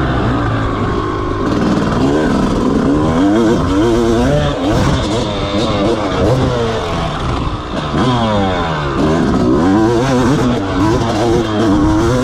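250cc two-stroke motocross bike engine being ridden hard, revving up and dropping back over and over as the throttle is worked, its pitch rising and falling every second or so.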